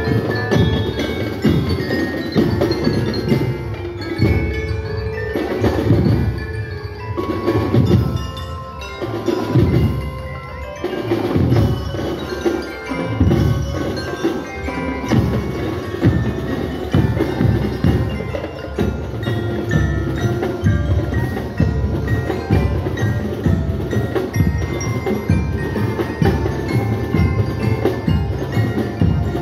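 Drum and lyre band playing a march: metal bell lyres ring out the tune over steady, evenly repeating drum beats.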